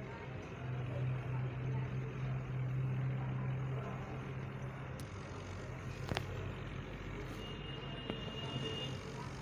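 Swaraj 855 tractor's three-cylinder diesel engine running steadily while hauling a loaded trolley, a little louder in the first few seconds. A sharp knock sounds about six seconds in and a smaller one near eight.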